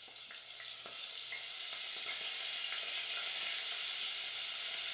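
Flour-coated calamari frying in hot olive oil: a dense sizzle that builds over the first second or two and then holds steady, with small pops and crackles through it.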